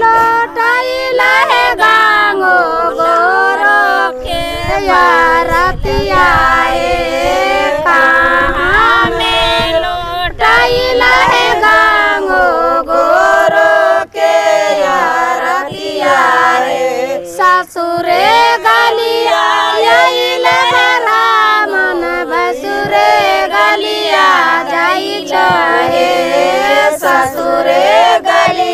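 A group of women singing a devotional folk bhajan to Mother Ganga together, unaccompanied, one continuous sung melody with the voices held and sliding between notes.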